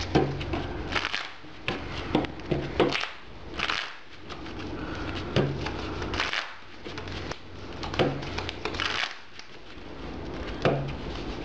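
Trading cards being handled on a table: irregular light taps and short sliding swishes as cards are drawn, moved and set down, over a low steady hum.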